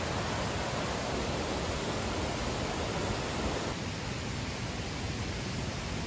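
Mountain stream rushing over rocks: a steady rush of water that drops a little in level a bit past halfway.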